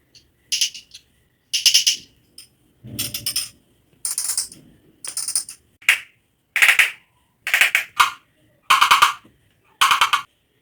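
A homemade thread-and-button clicker: a button pulled along knots in a cotton thread strikes a bottle cap in a quick run of clicks each time fingers slide over the knots. It comes in about ten short bursts, roughly one a second, and the pitch of the clicking shifts from burst to burst.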